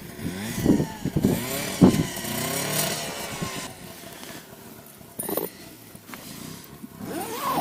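A vehicle engine revving as it drives off, its pitch rising and falling for the first three or four seconds before it fades.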